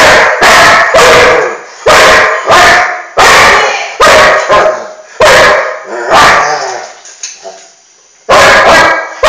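Doberman barking loudly, about ten barks in quick succession, with a pause of about a second near the end before barking again.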